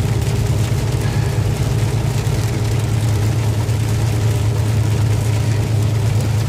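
Semi-truck's diesel engine running with a steady low drone inside the cab at highway speed, over an even hiss of tyres and rain on the wet road.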